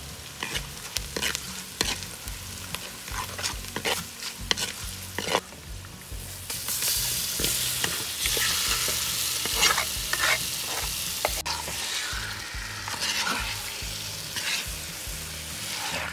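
Spices and onions frying in oil in a clay pot, with a coconut-shell spoon scraping and stirring. About halfway through, the sizzle grows louder and denser as marinated chicken pieces are tipped into the hot oil and stirred.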